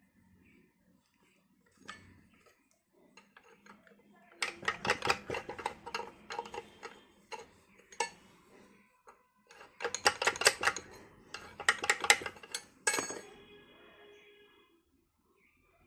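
Metal objects clinking and rattling against each other in two dense runs, with a piece of metal ringing briefly near the end.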